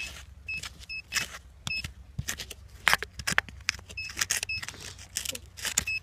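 A metal-detecting pinpointer giving short, high beeps in irregular runs as it picks up metal in the soil. Alongside them come scraping and crunching strokes of hands digging through earth and stones.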